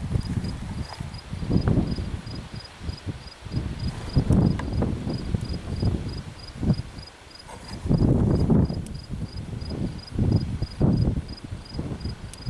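An insect, cricket-like, chirping steadily with a high, even pulse a couple of times a second, over an irregular low rumble of wind on the microphone. A few faint clicks come from the revolver being handled, the last near the end.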